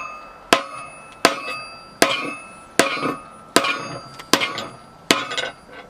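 Sledgehammer striking a bearing driver set in a sawmill bandwheel hub, driving the old, worn-out bearings out: seven sharp metal-on-metal strikes about every three-quarters of a second, each ringing briefly.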